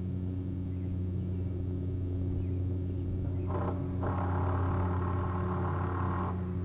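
Steady low mechanical hum. A brief hiss comes about three and a half seconds in, and a longer hiss starts about half a second later and cuts off sharply near the end.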